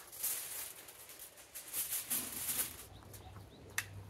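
Aluminium foil crinkling and rustling as sheets are spread out, with one sharp click near the end.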